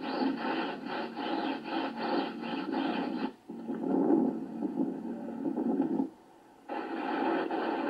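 Stiff deck broom scrubbing a wooden ship's deck: fast, rhythmic scraping strokes that break off briefly a little past three seconds in and stop about six seconds in. After a short pause a steady noise without strokes follows near the end.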